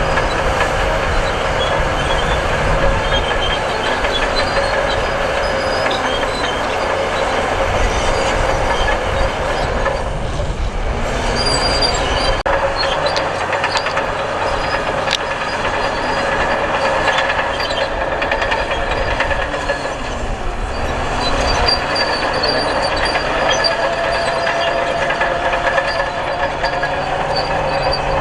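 Crawler bulldozer working, its engine running steadily with high whining tones over it. The sound eases briefly about ten seconds in, and a rising whine comes near the end.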